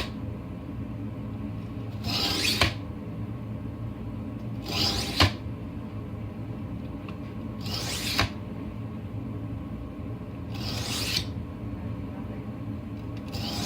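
Deboning knife blade stroked across a wet whetstone to sharpen it: five rasping strokes about three seconds apart, each ending in a short click.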